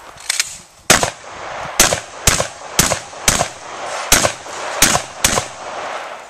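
Rapid gunfire from a shouldered long gun at steel targets: about eight loud shots roughly half a second apart, with a fainter shot just before the string.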